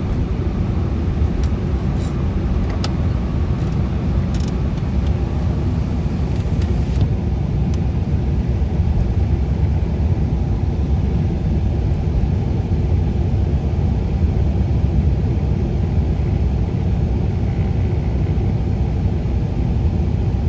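Steady low road and engine rumble inside the cabin of a moving vehicle driving at steady speed.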